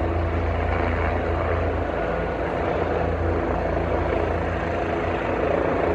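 Helicopter running with a steady drone and a low, even hum from the rotor and engine, while it airlifts rooftop air-conditioning units.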